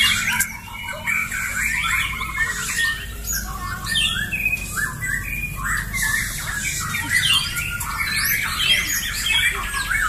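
Several caged white-rumped shamas (murai batu) singing against one another at once: a dense, unbroken stream of quick, overlapping whistles and chattering phrases.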